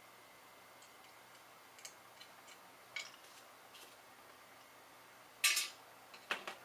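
Small metal tool clicks and scrapes against a circuit board while a chip socket is worked off it: scattered light ticks, a louder short scraping rattle about five and a half seconds in, then two sharp clicks near the end.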